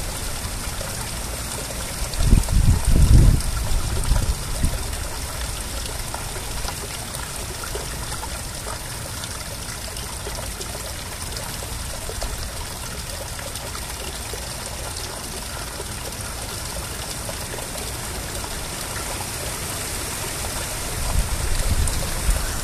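Water trickling steadily into a garden pond. Loud low rumbling bursts come about two seconds in and again near the end.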